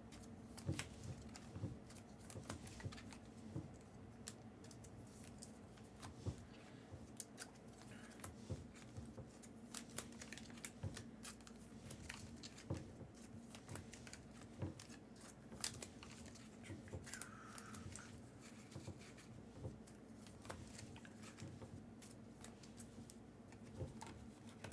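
Faint, scattered clicks, taps and light rustles of trading cards being handled and sorted, over a steady low hum.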